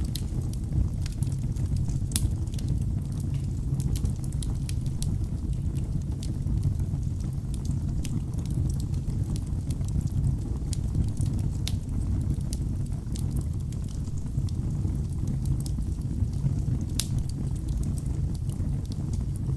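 Wood logs burning in a fireplace: a steady low rumble of the flames with frequent sharp crackles and pops from the wood, a louder pop about two seconds in and another near the end.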